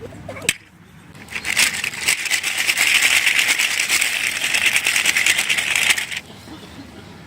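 Small hard pieces rattling and clattering together in a fast continuous run for about five seconds, then stopping abruptly: small plastic toy parts being shaken or poured.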